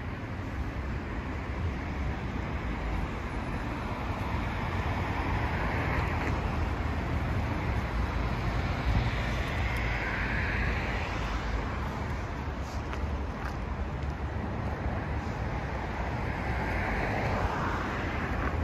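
Street traffic: cars passing one after another over a steady low rumble. Their noise swells and fades about three times.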